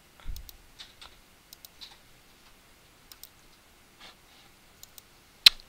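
Computer mouse clicking as drives are picked in a file browser: a few faint, scattered clicks, with one sharper, louder click near the end.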